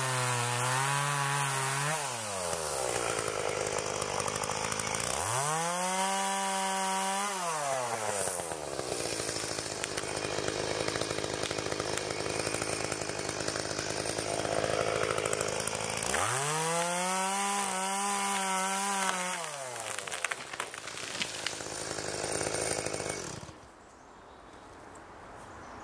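Two-stroke chainsaw at full throttle finishing a felling cut through a small dead tree, then dropping to idle about two seconds in. It is revved up and back down twice, and is shut off suddenly near the end.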